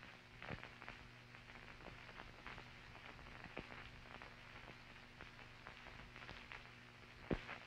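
Near silence: a faint steady hum with scattered soft crackles, the background noise of an old film soundtrack.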